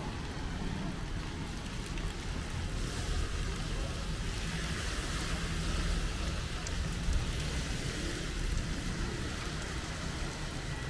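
Rain falling steadily on a city street, a continuous hiss that swells a little in the middle, over a low rumble of traffic.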